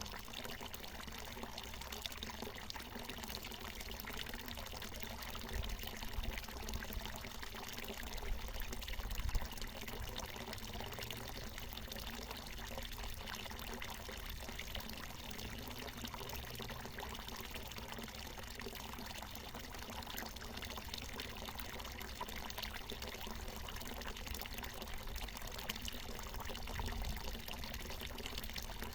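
Water from a natural mountain spring falling and splashing in a steady pour, with a few brief low rumbles, one about nine seconds in.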